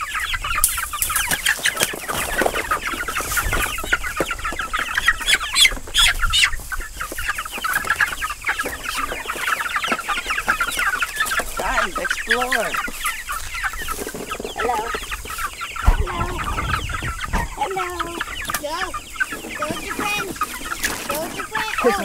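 A flock of young Black Jersey Giant meat chickens cheeping and clucking nonstop, with many short high calls overlapping. There is a brief low rumble about three-quarters of the way through.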